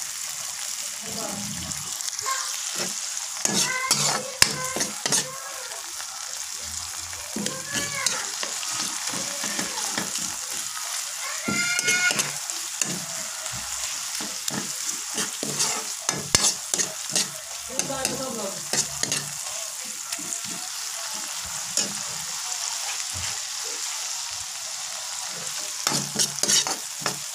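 Chopped garlic, onion and tomato sizzling in oil in a frying pan while a metal spoon stirs them, scraping and clinking against the pan now and then. This is the sauté base cooking down until the tomato softens.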